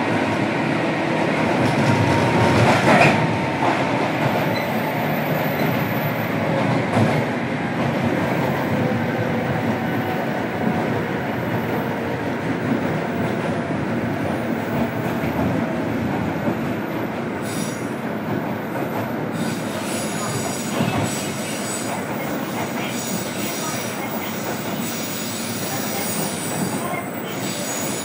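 Interior running noise of a JR Kyushu 103 series electric train, heard from inside a motor car (MoHa 102): a steady rumble of wheels and traction gear on the rail. There are a couple of knocks in the first seconds, and high wheel squeal comes in during the second half.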